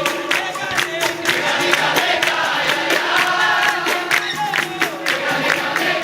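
Capoeira roda music: a group of people singing together over steady hand claps and percussion.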